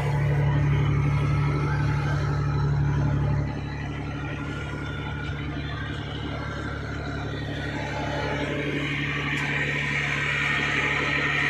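A fishing boat's engine running steadily at low speed under the load of towing another boat, with the rush of water from the wake. The sound drops somewhat about three and a half seconds in, then holds steady.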